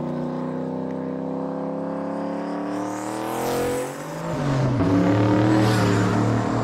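Single-turbo 4.6-litre two-valve V8 of a 1999 Mustang GT under acceleration, its engine note rising steadily for about three and a half seconds as the car comes past with a rush. About four and a half seconds in, the pitch drops and then holds as it pulls on.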